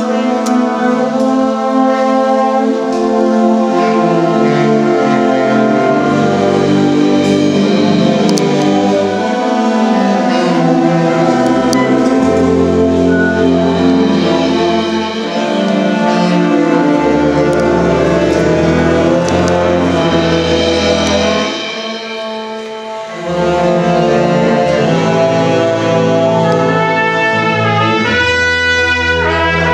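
A brass band with sousaphones and trumpets playing a loud piece, with sustained chords over a deep bass line. A short quieter stretch comes about three-quarters of the way through.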